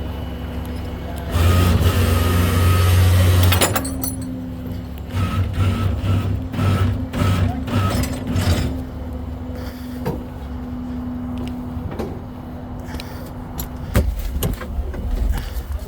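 Heavy diesel machinery running steadily. A loud hiss lasts about two seconds, starting a second or so in, then comes a few uneven surges of engine and hydraulic noise, and a couple of knocks near the end.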